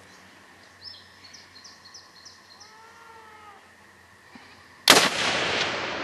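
A single rifle shot about five seconds in, its report fading away in a long echo that rolls on for several seconds. Before it, faint bird chirps.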